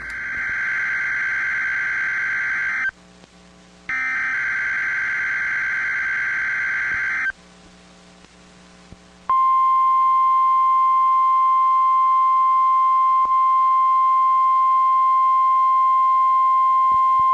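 NOAA Weather Radio test signal: two bursts of warbling digital data tones, each about three seconds long, then about halfway through the steady single-pitch 1050 Hz warning alarm tone, which holds unbroken.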